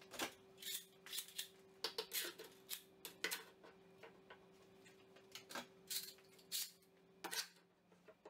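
Steel bar clamps on a wooden tabletop glue-up being handled and tightened: a string of irregular metallic clicks and scrapes, busiest in the first few seconds and thinning out near the end, over a faint steady hum.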